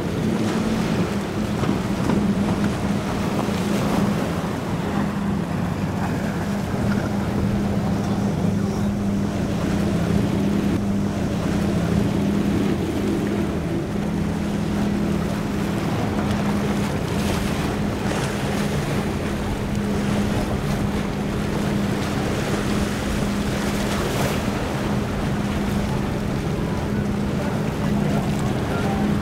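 Motorboat engine drone holding steady throughout, with waves and gusts of wind buffeting the microphone.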